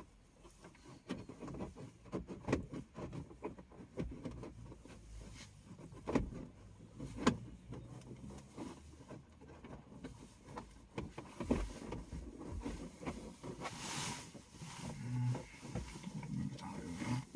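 Hands handling electrical wiring and small parts in a car's interior: rustling with scattered light clicks and knocks, two sharper knocks about six and seven seconds in, and a brief hiss near the end.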